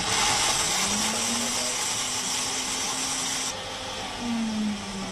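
Countertop blender running at full speed, grinding brittle liquid-nitrogen-frozen salmon pieces into powder. It starts abruptly, with a loud grinding hiss and a motor hum that wavers in pitch. The hiss thins out about three and a half seconds in.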